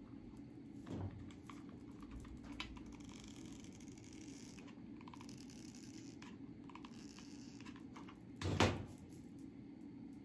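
Quiet handling sounds as a marabou feather boa is pressed and hot-glued onto a rubber slide sandal's strap: soft rustling and light clicks, a small knock about a second in and one louder thump a little after eight seconds.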